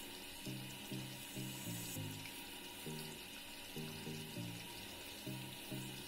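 Parrot fish pieces deep-frying in oil in an aluminium kadai: a steady sizzling hiss. Background music with a run of short low notes, a few per second, plays over it and makes up the loudest peaks.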